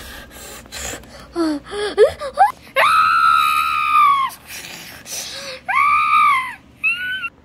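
A person screaming: short, gasping cries at first, then three high-pitched screams. The first is long, about a second and a half; the second is shorter; the third is brief, just before the end.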